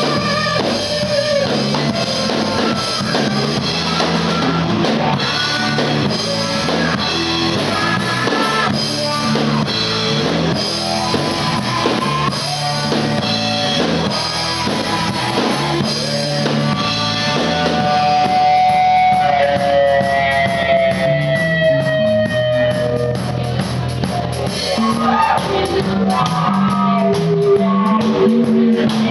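Live rock band playing loudly: electric guitars over a drum kit, with a long held, slightly falling note in the second half.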